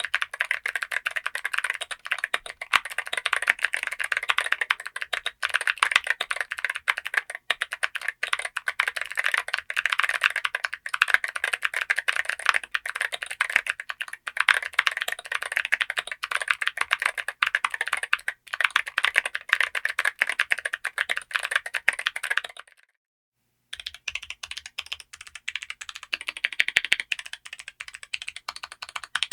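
Fast, continuous typing on a TKD Cycle7 gasket-mounted mechanical keyboard with an aluminium case. About two-thirds of the way through it cuts to a second of silence, then the typing resumes a little softer.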